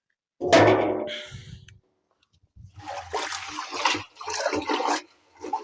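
Liquid sloshing and gushing in a container, in several spells; the loudest is a sudden burst about half a second in.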